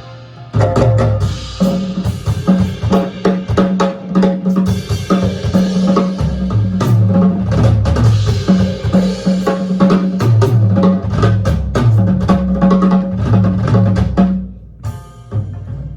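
Geomungo (Korean plucked bass zither) and yanggeum (Korean hammered dulcimer) playing with a drum kit. The drums come in about half a second in with a busy pattern over low, heavy string notes. They drop out near the end, leaving the strings ringing.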